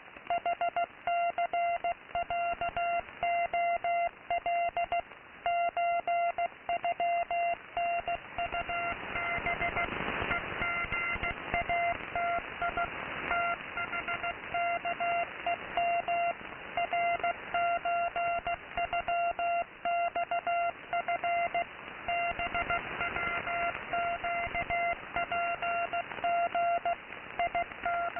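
Morse code from a shortwave radio station received in AM mode: a steady mid-pitched beep keyed on and off in dots and dashes over a constant bed of radio static and hiss. The static swells for a few seconds about a third of the way through, partly covering the beeps.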